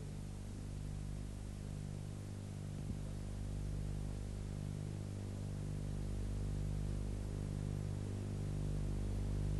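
Low steady hum over a faint hiss, its lowest tones swelling and fading gently about once a second.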